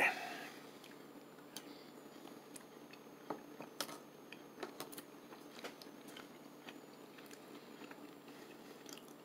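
A person quietly eating canned ham and bean soup: faint chewing and a scattered series of small sharp clicks.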